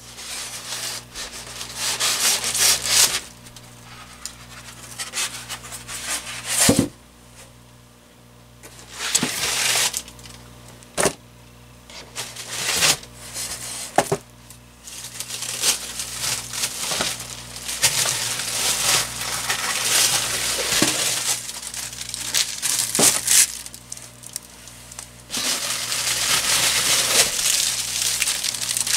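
Soaked cardboard shipping box being opened and unpacked by hand: flaps scraping and rubbing, a foam packing insert pulled out, and plastic wrap crinkling, in irregular bursts with a few sharp knocks between quieter stretches.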